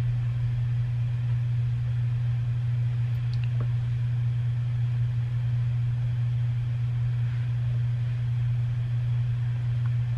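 Steady low hum of room background noise, with a couple of faint ticks about three and a half seconds in.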